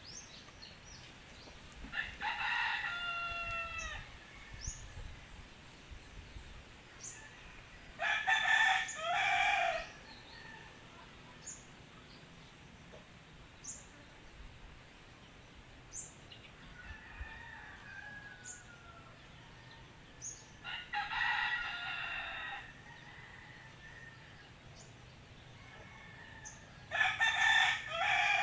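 Rooster crowing four times, each crow about two seconds long, with small birds chirping briefly in between.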